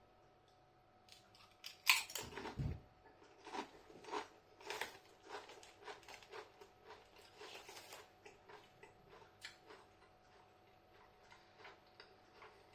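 Corn tortilla chips being bitten and chewed, a sharp crunch about two seconds in followed by a run of softer crunches that fade away.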